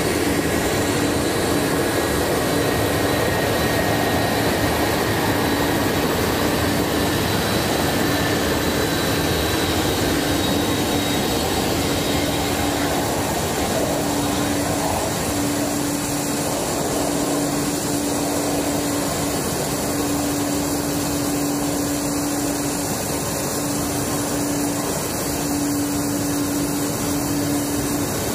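Steady jet engine noise from a KC-10 Extender tri-jet tanker's turbofans at taxi power, with a low hum that keeps breaking off and returning.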